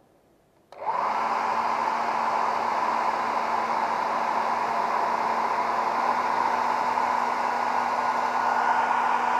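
Electric blower switched on abruptly about a second in, running steadily with a rush of air and a constant motor whine.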